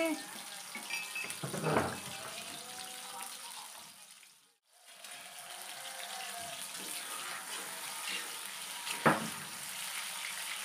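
Tofu pieces frying in hot oil in a wok with a steady sizzle. A couple of knocks against the wok, about two seconds in and a louder one about nine seconds in, come as pieces go in and are turned with a metal spatula. The sound drops out briefly about halfway.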